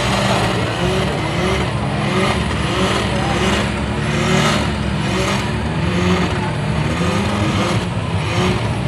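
A loud car engine running steadily, with people's voices mixed in.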